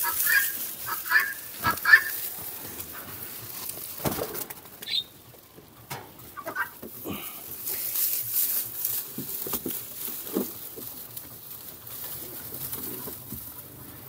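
Dry straw rustling and crackling as handfuls are stuffed under and around a wire pigeon cage, with scattered light knocks of handling. A hen clucks several times in the first couple of seconds, and a short high bird call sounds about five seconds in.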